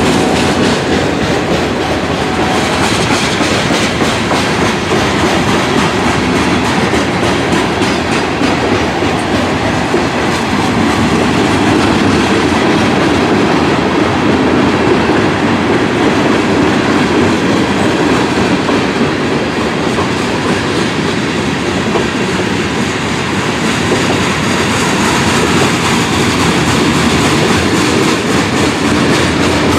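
Freight train rolling past, a loud, steady clatter of wagon wheels over the rails.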